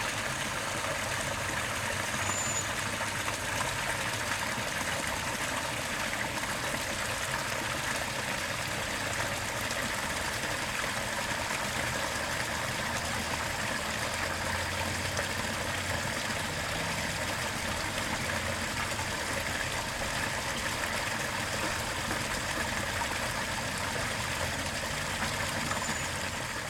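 Steady rush of water from a small pond waterfall spilling over rocks.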